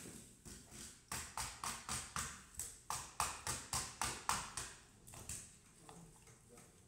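Scales being scraped off a fish with a hand scaler: quick rhythmic scraping strokes, about three or four a second, that die away about five seconds in.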